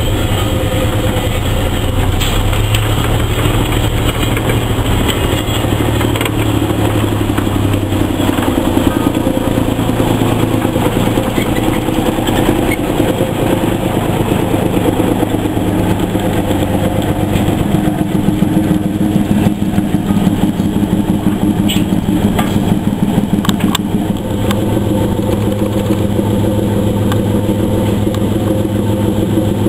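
Small diesel shunting locomotive's engine running steadily at close range, a low, even engine note.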